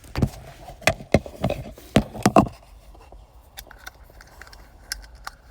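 Sharp clicks and taps of a screwdriver tip against the hard plastic and trim of a car's shift knob, as it is worked into position to pry off the cap. A cluster of knocks comes in the first two and a half seconds, then a few faint ticks.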